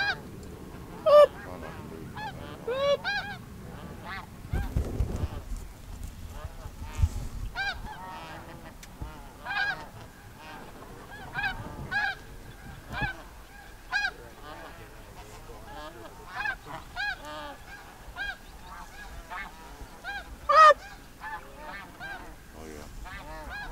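Snow geese calling overhead: many short, high honks overlapping, with a few single calls much louder than the rest.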